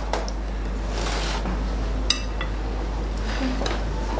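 Cutlery tapping and scraping on plates at a dinner table, with one sharp ringing clink of china or glass about two seconds in, over a steady low hum.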